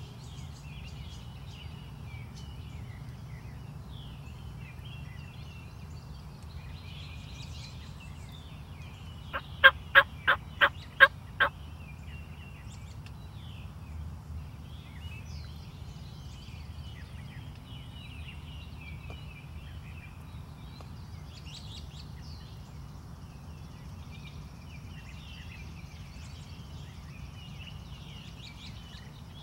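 Wild turkey gobbler gobbling once about ten seconds in: a rapid rattling series of about seven notes lasting about two seconds. Small songbirds chirp faintly throughout.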